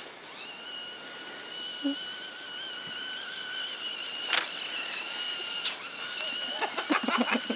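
Arrma Granite BLX RC monster truck's brushless motor whining at a steady, slightly wavering pitch as it drives over the snow, stopping about four and a half seconds in. There are two sharp knocks, the first as the whine stops and another a second later.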